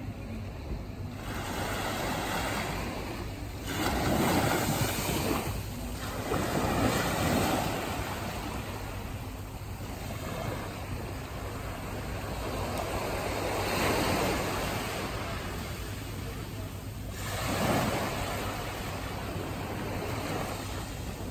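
Small waves washing onto a sandy beach, the surf noise swelling and falling back in slow surges a few seconds apart.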